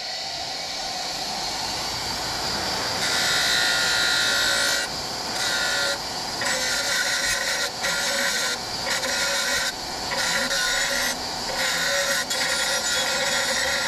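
Black & Decker bench grinder running, and from about three seconds in, the twisted spring-steel shaft of a spear made from a car spring is pressed against the grinding wheel: a loud steady grinding hiss broken by short gaps about once a second as the steel is lifted and repositioned.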